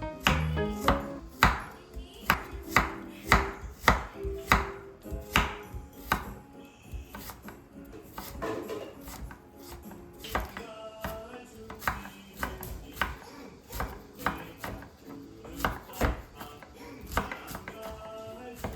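Knife chopping food on a cutting board, steady strokes about two a second that turn lighter and more scattered after about six seconds, over soft background music.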